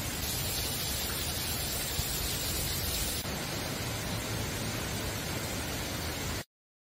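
Steady rush of water from a small waterfall splashing over rocks. It shifts slightly about three seconds in, then cuts off suddenly near the end.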